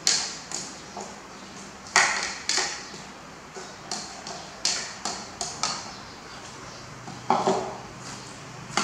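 Plastic spoon clinking and scraping against a ceramic bowl as food is stirred: a string of sharp clinks at uneven intervals.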